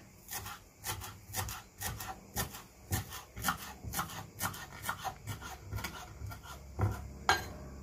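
Knife chopping fresh dill on a wooden cutting board: a steady run of chops, about two or three a second, with a couple of louder knocks near the end.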